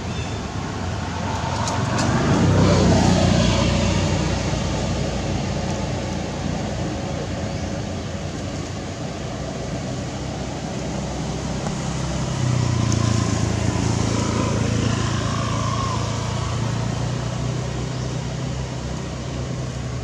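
Motor vehicle passing off-camera, its engine note swelling and falling in pitch as it goes by about three seconds in. From about twelve seconds on, a steady low engine hum comes from another vehicle.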